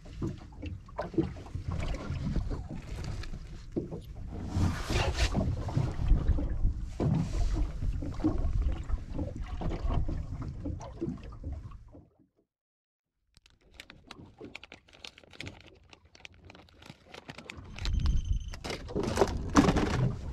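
A steady rumbling rush of wind and sea on the microphone, with clicks and knocks of hands handling things in the boat. The sound cuts out for about a second roughly twelve seconds in.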